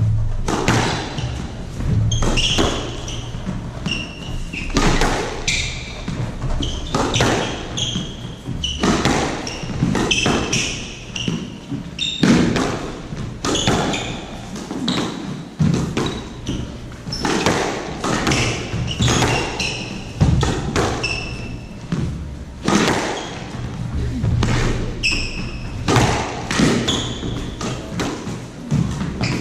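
Squash rally: the ball is struck by rackets and smacks off the front and side walls in a steady run of sharp knocks, with short high squeaks from the players' shoes on the wooden court floor.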